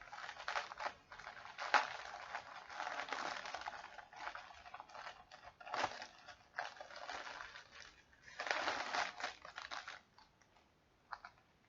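Crinkly plastic packaging being handled and crumpled, in irregular rustling bursts that die down about ten seconds in.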